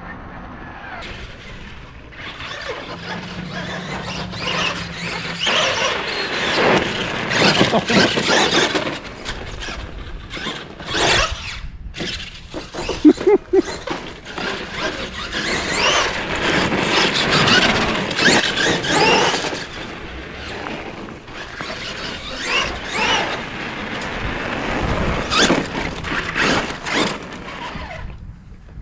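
Traxxas E-Maxx RC monster truck with a single VXL 3500kV brushless motor, run on a 4S LiPo, driving hard: its high-pitched motor and drivetrain noise rises and falls in pitch as it speeds up and slows down, with a sharp clatter about thirteen seconds in.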